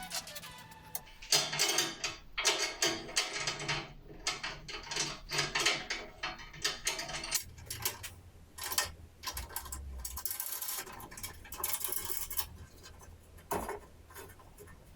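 Irregular mechanical clicking, rattling and scraping in uneven bursts, like metal parts being handled and adjusted.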